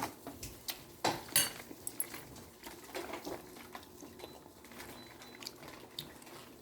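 Cutlery and dishes clinking at a dinner table: scattered light clicks and taps, two sharper ones about a second in.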